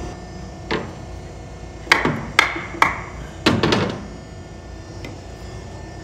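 A handful of sharp metallic knocks and clanks, about five in the first four seconds, some with a brief ringing tail, from the steel fittings of a sawmill's log carriage as the log is set and secured.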